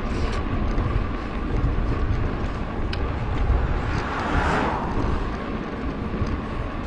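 Wind rumbling on a GoPro action camera's microphone while cycling along a road. About four seconds in, the noise of a passing vehicle rises and fades.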